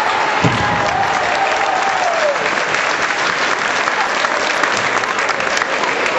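Audience applauding steadily. A single low thud comes about half a second in, and a long falling tone rides over the clapping for the first two and a half seconds.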